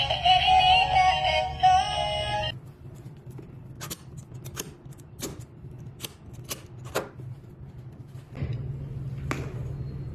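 Synthetic-voiced background music that stops about two and a half seconds in, followed by a series of sharp plastic clicks and knocks as the folding latch of a kids' scooter is worked and its handlebar stem is folded down.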